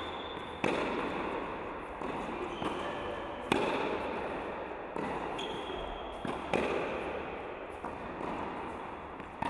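Tennis racket striking the ball in forehand groundstrokes: four sharp hits about three seconds apart, each ringing on in the echo of an indoor tennis hall, with softer knocks between them.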